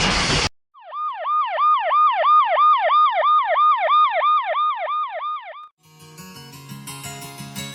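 Emergency-vehicle siren in a fast yelp, its pitch swinging up and down about three times a second, after a loud rushing noise that cuts off suddenly half a second in. Music takes over near the end.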